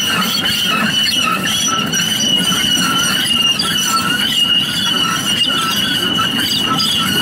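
Loaded sugar cane train's steel-wheeled cane bins rolling past: a steady, wavering high-pitched wheel squeal on the rails over the low rumble and clatter of the wheels.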